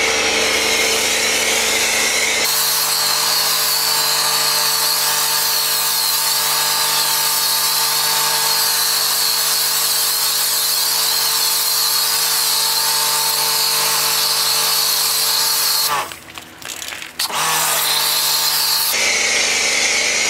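Kärcher K2 electric pressure washer running, with the loud hiss of its foam cannon spraying snow foam. About sixteen seconds in, the motor drops out for about a second, then spins back up.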